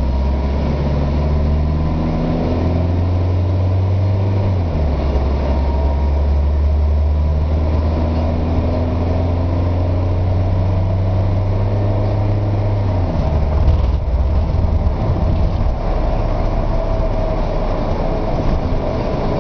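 Car engine and road noise heard from inside the cabin while accelerating. The engine note climbs gently and drops as the automatic gearbox shifts up smoothly, about five seconds in and again about thirteen seconds in.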